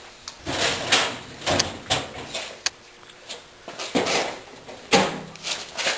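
Rummaging: a quick, irregular run of knocks, scrapes and rustles as objects are handled and moved about.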